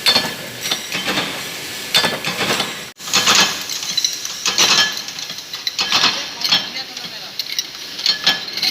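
Metal parts clinking and knocking against each other at irregular intervals, with a short break about three seconds in.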